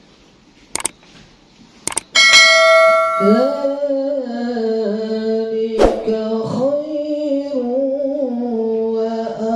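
Two clicks and a bright bell ding, the sound effect of a subscribe-button animation. From about three seconds in, a man's voice begins a slow, melodic Quran recitation over a microphone, holding long notes with sliding ornaments.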